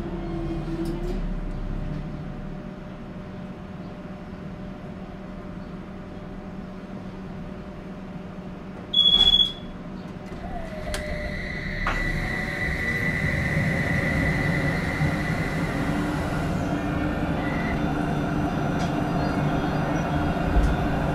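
Rhein-Neckar-Verkehr M8C-NF tram, heard from inside: it stands with a low steady hum, then a short, loud, high beep sounds about nine seconds in. After a click about twelve seconds in, the modernised traction inverter's steady high whine starts and running noise builds as the tram moves off.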